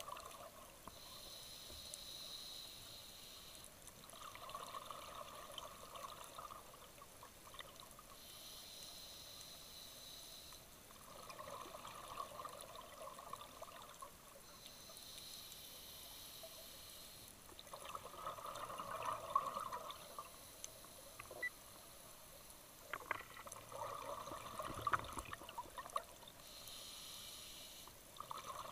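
Scuba diver breathing through a regulator underwater: a hiss on each inhale alternating with the bubbling gurgle of each exhale, in slow regular breaths about every six or seven seconds. A few sharp clicks sound during the later exhales.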